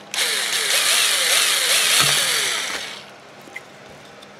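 Black & Decker cordless drill running for about three seconds as it drills a hole in a 3D-printed plastic enclosure, its motor pitch wavering up and down as the bit bites, then stopping. A few light clicks follow.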